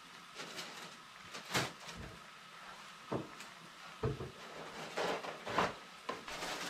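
Irregular household knocks and clatter, about six short thuds and clicks spread over several seconds, like cupboard doors or kitchenware being handled, over a faint steady hiss.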